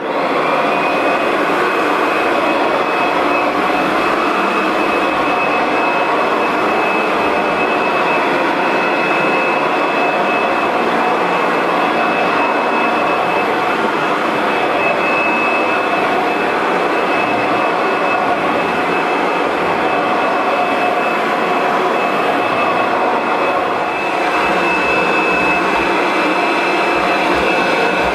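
Kirby Sentria 2 upright vacuum switched on and running steadily through its bare-floor attachment, with the brush roll and belt removed. A steady high whine over a rush of air sets in within the first second, with a brief small dip in level near the end.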